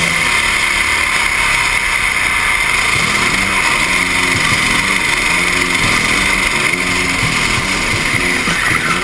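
Kart engine running at racing speed, heard from an onboard camera and largely buried under steady wind noise on the microphone, with the engine note faintly rising and falling.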